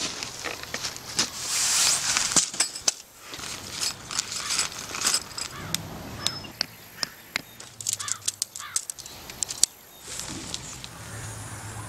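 Camping tent being pitched by hand: rustling nylon with a busy, irregular run of sharp clicks and knocks as a stake is set and shock-corded tent pole sections are fitted together.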